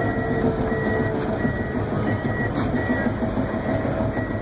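Komatsu D39PX bulldozer's diesel engine running steadily, heard from inside the cab, with its backup alarm beeping repeatedly as the dozer reverses.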